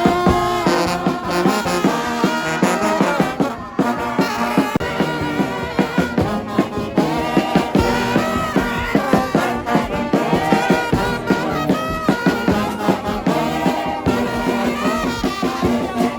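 Music with brass instruments and a regular beat.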